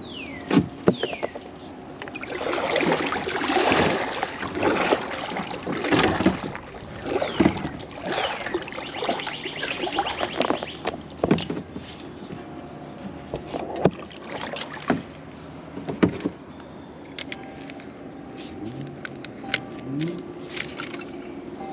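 Kayak being paddled: irregular water swishes and splashes, strongest in the first half, with a few sharp knocks.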